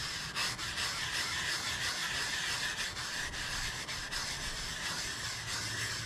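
Short-bristled tempered brass wire brush scrubbed by hand in figure-eight strokes over a rusty radial drill press tilting table wet with acetone and transmission fluid: a steady wet scratching that swells and fades with each stroke as the rust lifts into a slurry.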